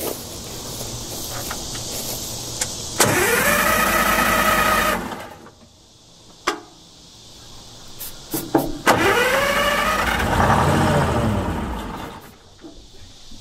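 Starter motor cranking the long-idle DROTT excavator's diesel engine in two bursts, one of about two seconds and one of about three, each whirring up to speed and then stopping or winding down without the engine catching. There are a couple of sharp clunks between the bursts.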